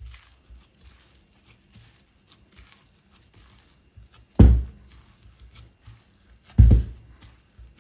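Gloved hands knocking back risen pizza dough in a glass bowl: faint soft rustling and squishing of the dough, with two heavy thumps, about four and a half and six and a half seconds in, as the dough is pushed down into the bowl.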